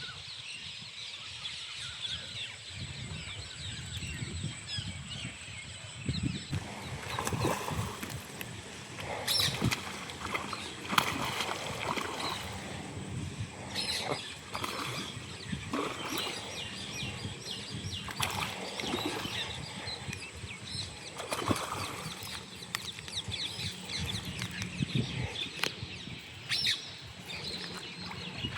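Outdoor ambience with birds chirping, broken by short bursts of flapping and splashing every few seconds.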